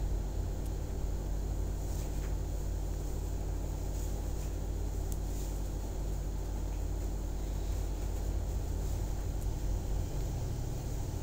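Steady low background rumble and hum with no speech, with a few faint ticks.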